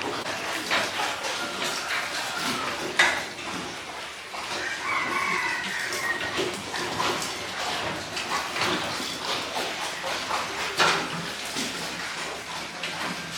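Pigs squealing and grunting, with a couple of sharp knocks, one about three seconds in and another near the end.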